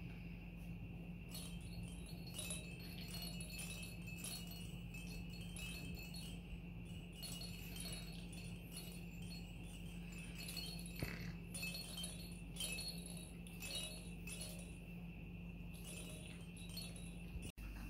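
Small bells and rattles in hanging puppy-gym toys jingling and tinkling in irregular clusters as the puppies bat and tug at them, over a faint steady hum.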